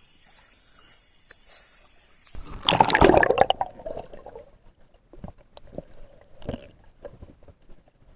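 A steady night insect chorus cuts off abruptly as the microphone plunges under the river surface. A loud splash and rush of bubbles follows about two and a half seconds in, then faint underwater clicks and bubbling.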